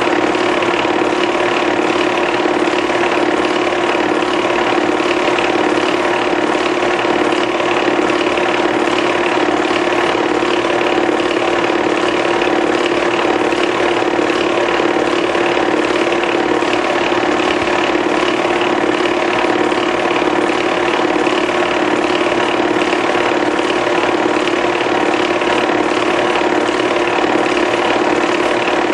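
Movie film projector running: a steady, rapid mechanical clatter from the film-advance mechanism over a constant motor hum.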